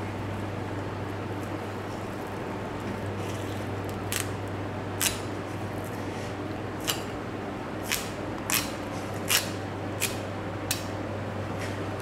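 Long kitchen knife cutting through a raw salmon fillet: about eight short, crisp strokes in the second half, over a steady low hum.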